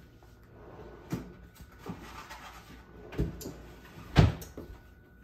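Kitchen cabinet sounds while a box of aluminum foil is fetched: a few knocks and a short rustle, the loudest knock about four seconds in.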